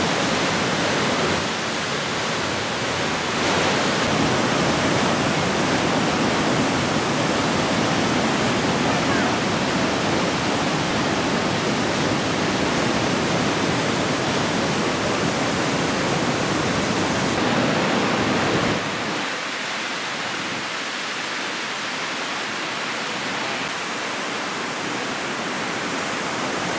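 Athabasca Falls: the Athabasca River's whitewater pouring through a rock gorge, a loud, steady rushing noise. It gets a little quieter and loses some of its low end about two-thirds of the way through.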